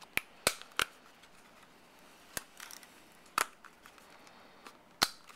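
Sharp plastic clicks and snaps, about six in all, three in quick succession at the start and then single ones spaced a second or so apart, as the textured plastic spine of a Switcheasy Rebel Serpent iPhone case is unclipped and worked off.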